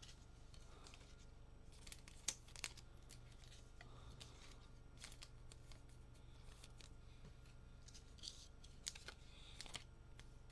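Quiet handling of trading cards: faint scattered clicks and rustles as cards are sorted and slid into plastic sleeves, over a low steady hum.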